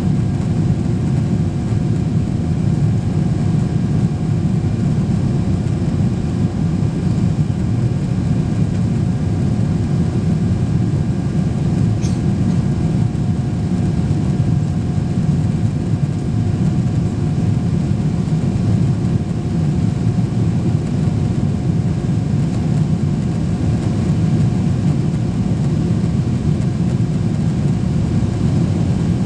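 Steady jet airliner cabin noise during the climb after takeoff: a low, even drone of engines and rushing air, with a faint steady tone above it.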